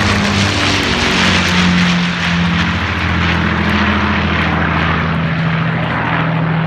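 Avro Lancaster bomber's four Rolls-Royce Merlin piston engines droning loudly as it passes overhead and draws away. Its low engine tones drop slightly in pitch after a few seconds, and the hiss above them thins toward the end.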